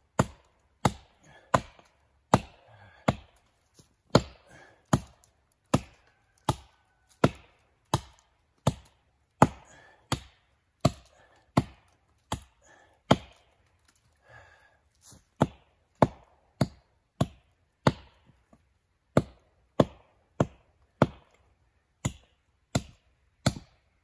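Axe blows chopping into the trunk of a dead standing tree, cleaning up the felling notch: a steady run of sharp, single strikes a little more than one a second, with a couple of brief pauses.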